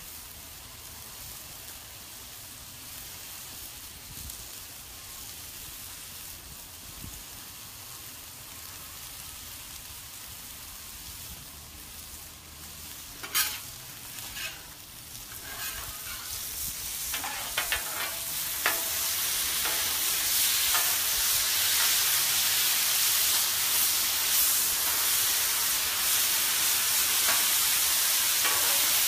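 Bite-size chicken thigh pieces sizzling on a Blackstone flat-top griddle. Partway through come a few sharp taps and scrapes of a metal spatula on the steel plate, and after that the sizzle grows louder as the pieces are spread across the hot surface.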